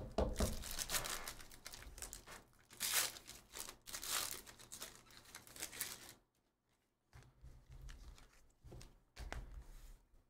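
Foil wrappers of Donruss basketball card packs crinkling and tearing as the packs are handled and ripped open, with the loudest tearing about three and four seconds in. After about six seconds, only faint handling sounds.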